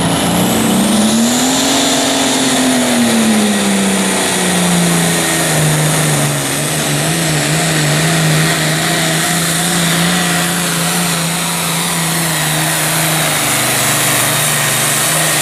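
Turbocharged International Harvester diesel tractor engine running under full load as it pulls the sled. Its pitch climbs about a second in, drops back, then holds steady, with a high turbo whine above it.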